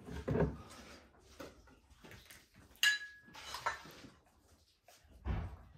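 Glass jars knocking and clinking on a wooden shelf as one is taken down and handled, with one sharp clink that rings briefly about three seconds in.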